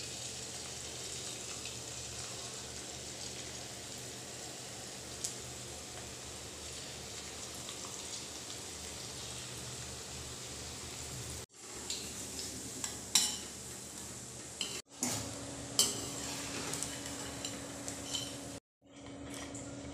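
Potato murukku dough frying in hot oil in a kadhai, with a steady sizzle. In the second half the sound breaks off abruptly a few times, and a steel slotted spoon and strainer clink sharply against the pan as the fried spirals are lifted out.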